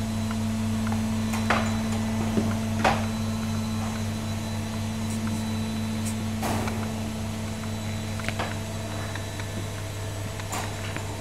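Steady low electrical hum, like mains hum, with a few short clicks and knocks scattered through it, from puppies moving about in a wire crate.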